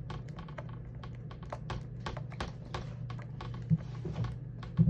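Small screws being driven and handled with a screwdriver on a laptop screen assembly: rapid, irregular light clicks and ticks, with two louder knocks near the end.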